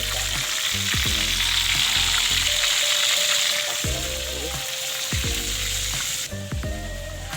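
Fish frying in hot oil: a steady sizzle that drops away suddenly about six seconds in, with background music over it.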